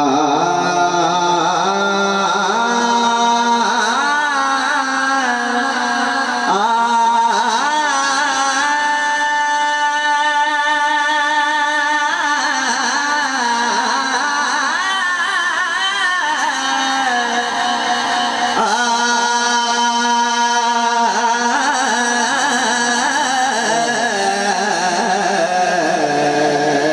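A man singing a long wordless melismatic passage, the slow unaccompanied vocal flourish of naat recitation, with long held notes that waver and glide between pitches.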